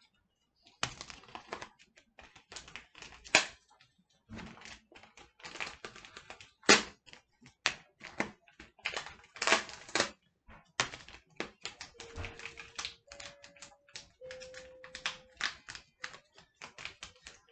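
Plastic ingredient packets being handled and sorted, crinkling and rustling in irregular bursts of crackles with short pauses between.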